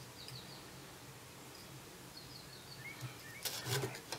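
Quiet room background with a few faint, short high chirps, then a cluster of soft rustles and taps about three seconds in as the fly-tying materials on the vise are handled.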